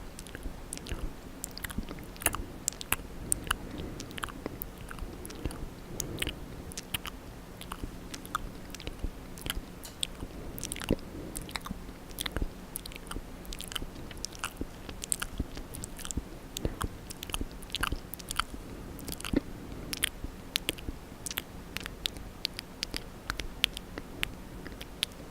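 Close-miked ASMR mouth sounds: wet lip and tongue clicks and smacks, many irregular sharp clicks a second.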